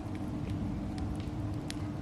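Softwood firewood burning and crackling, with several sharp pops and snaps over a steady low rumble and faint hum.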